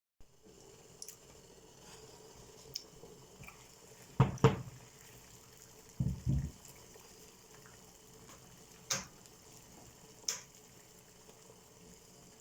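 Scattered knocks and clinks of kitchenware over a faint steady hum, the loudest a pair of knocks about four seconds in and a few low thumps about two seconds later.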